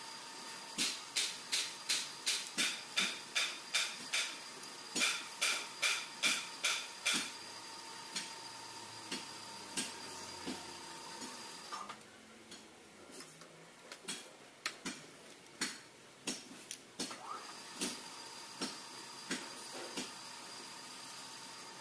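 Steel parts being tapped with a metal tool: a quick run of light metallic taps, about three a second, for several seconds, then slower scattered knocks. Under them is a faint steady high whine that drops out for a few seconds midway.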